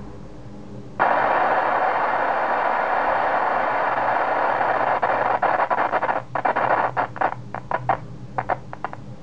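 Homemade Geiger counter's output through a computer speaker: a loud, even hiss cuts in suddenly about a second in, then breaks up into a rapid, irregular run of clicks. The hiss is the tube oversaturating with its voltage set too high.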